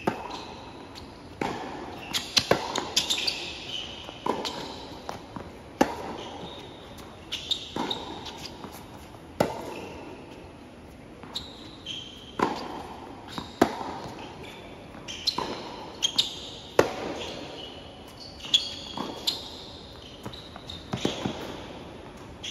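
Tennis rally on a hard court: a sharp racket strike or ball bounce every second or two, with sneakers squeaking on the court between the hits.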